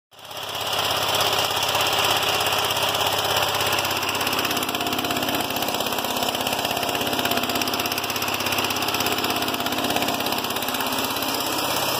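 Small petrol engine of a wheeled drain-cleaning water jetter running steadily, with a fast, even firing rhythm.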